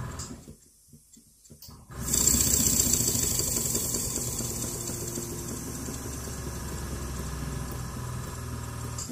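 Holzapfel CH110 twin-cylinder marine steam engine running on compressed air. After a pause it starts again about two seconds in with a loud rush of air, then runs fast with rapid, even exhaust beats that settle a little in loudness.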